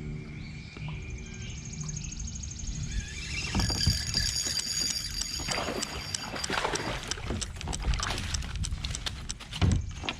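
Fishing reel being cranked fast, a fine rapid clicking. Then a run of irregular splashes, knocks and rattles as a bass is fought and brought up to the kayak.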